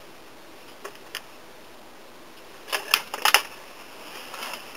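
Handling noise from a handheld camera: a few sharp clicks and rustles over a faint hiss, the loudest in a short cluster about three seconds in.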